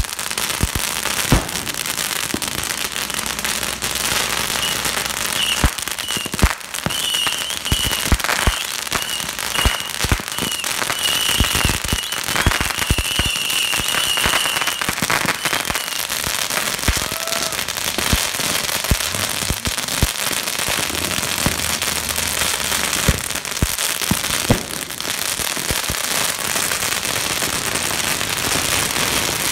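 Firecrackers going off on the ground in a steady crackle of rapid pops, with many louder single bangs throughout. A high, wavering whistle is heard from about five to sixteen seconds in.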